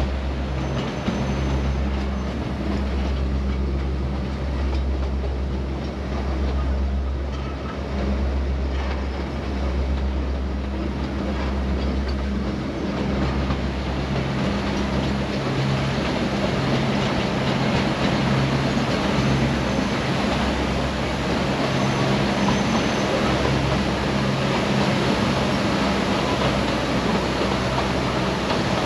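Neral–Matheran narrow-gauge toy train running along the line, heard from aboard a carriage: steady wheel-and-rail noise over a low, steady drone that weakens about halfway through.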